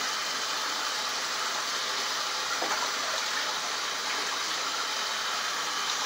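A steady, even rushing noise that does not change.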